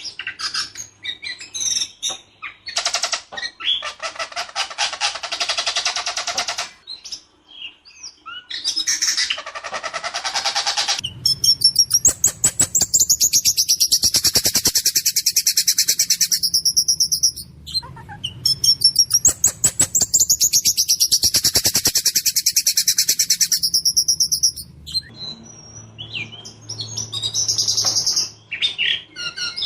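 Ciung batu (whistling thrush) in full song with harsh, clear, rolling phrases: quick rattling trills, then two long, loud, fast trills laced with high whistled notes, each several seconds long, and shorter phrases near the end.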